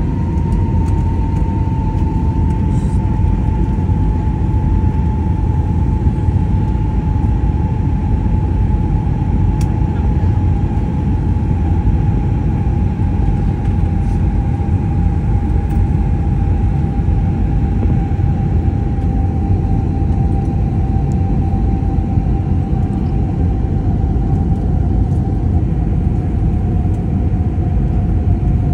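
Cabin noise inside an Airbus A320-family airliner on approach: a steady low rumble of the engines and airflow, with a whine above it that slowly falls in pitch.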